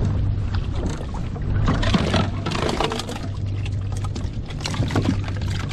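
Water splashing and sloshing around a plastic kayak, with scattered knocks and rustles from gear and bait fish being handled on the deck.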